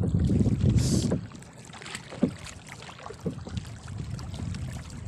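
Wind buffeting the microphone for about the first second, then wooden paddle strokes on a small outrigger boat: a short knock and splash about once a second over lapping water.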